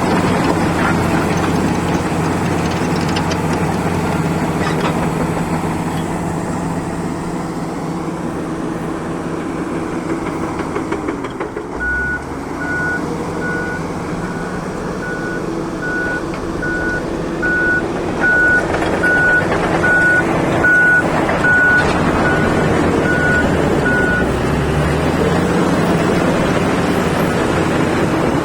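Heavy diesel engine running steadily, likely a mining truck at work. A reversing alarm beeps a little over once a second, starting near the middle and stopping a few seconds before the end, as the truck backs up.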